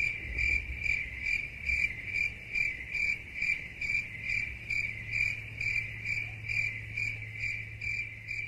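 Crickets chirping, the 'awkward silence' meme sound effect: an even chirp repeating about two and a half times a second, over a low steady hum.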